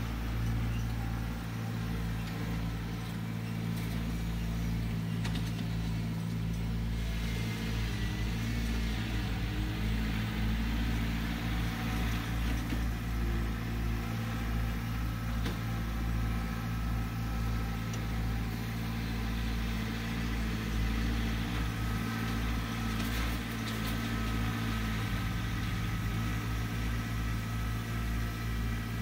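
Compact tractor's engine running steadily as it works its front-end loader carrying pond spoils for backfill. Its pitch dips and rises briefly twice, around a third of the way in and near the end.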